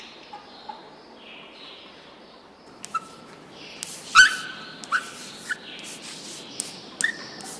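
Chalk writing on a blackboard: scratchy strokes at first, then from about three seconds in a series of sharp taps and short squeaks as the chalk strikes and drags on the board. The loudest tap comes about four seconds in.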